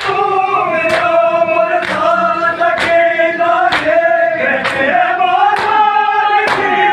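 A crowd of mourners chanting a noha (lament) together, held on long sung notes, over loud unison chest-beating (matam). The slaps come about once a second.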